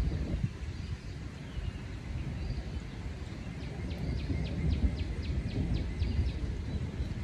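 Northern cardinal singing a run of about ten quick slurred whistles, about four a second, starting about halfway through. Under it runs the low rumble of a thunderstorm.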